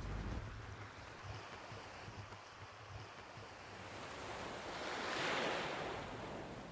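Ocean surf: a soft wash of a wave that swells to a peak about five seconds in and then fades away.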